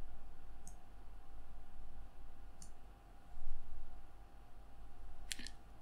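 A few sparse computer mouse clicks, single ones about two seconds apart and then a quick pair near the end, over a faint steady electrical hum.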